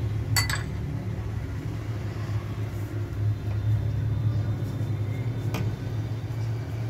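Steady low hum, with two light clicks just after the start and another about five and a half seconds in.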